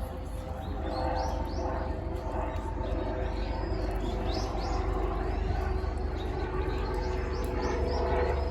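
Small birds chirping in short quick runs of high, arching notes, a few times, over a steady low background rumble.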